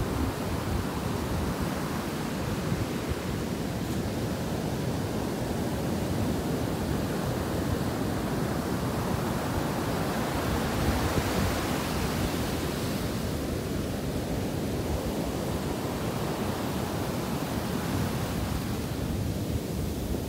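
Ocean surf breaking and washing up a sandy beach in a steady rush of foam, swelling louder about halfway through as a wave washes in.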